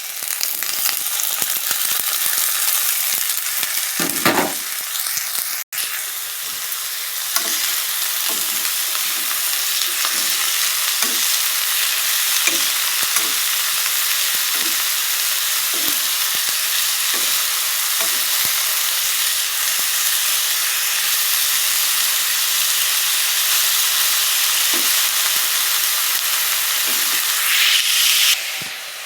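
Kakrol (spiny gourd) frying in hot oil with a steady loud sizzle, while a utensil stirs the pan and knocks against it about once a second.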